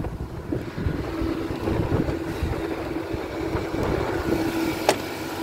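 The 1998 Audi A6's 2.4-litre V6 idling with a low, uneven rumble and a thin steady hum. The car has one catalytic converter removed, which the owner says gives it its rattle. A single sharp click comes a little before the end.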